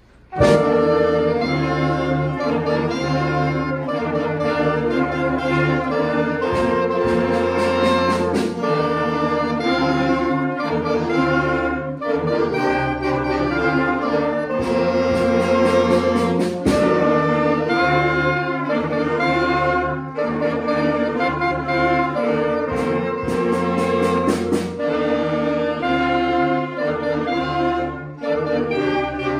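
A junior school concert band of beginning players (flute, clarinets, saxophones, brass and drum kit) comes in together about half a second in and plays on in full ensemble, with clusters of drum and cymbal strokes at several points.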